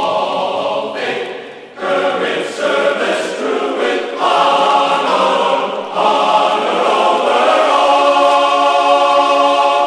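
Background vocal music: chanted singing in long held notes, with short breaks between phrases.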